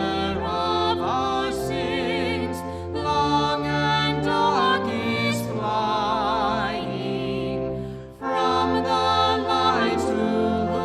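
Sacred vocal music: singing with a wide vibrato over sustained accompaniment, with a short break between phrases about eight seconds in.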